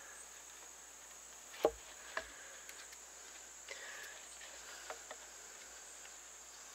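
A knife cutting and trimming chips out of a notch in a green stick: a few short sharp clicks, the loudest about a second and a half in and another soon after, then fainter ones near the fourth and fifth seconds. Under them is a steady high buzz of insects.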